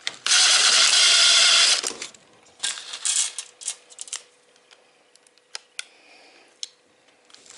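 Drill with a Phillips bit running in a hinge screw for about a second and a half, then a run of clicks and light rattles, with a few single clicks after.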